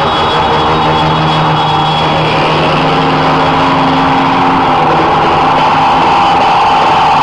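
Cars and a pickup in a slow procession passing close by: a loud, steady mix of engine noise with several long held tones over it.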